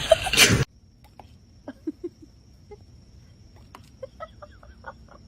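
Faint, short, high animal calls in small quick runs, after a loud sound that cuts off abruptly less than a second in.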